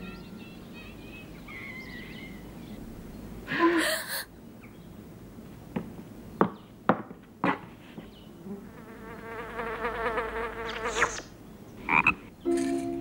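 Cartoon frog croaking: a long trilling croak, then a shorter croak near the end. Before them come a brief noisy burst about four seconds in and a few sharp clicks.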